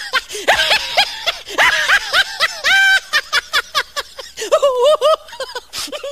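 Dubbed human laughter: a long fit of quick, high-pitched 'ha ha ha' syllables, several to the second, the pitch often dropping within each burst. It stops abruptly near the end.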